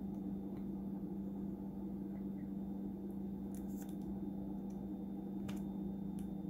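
A few small, sharp clicks and taps as a plastic tool presses an antenna cable connector down onto a laptop's M.2 wireless card, trying to snap it into place, over a steady low hum.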